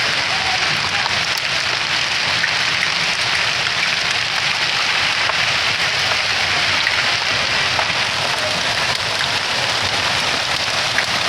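Rain falling steadily as a dense, even hiss of drops on surfaces, with a few scattered louder drop ticks.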